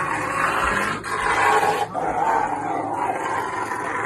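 Angry dog growling and snarling in long rasping bouts, broken by short pauses for breath about one and two seconds in.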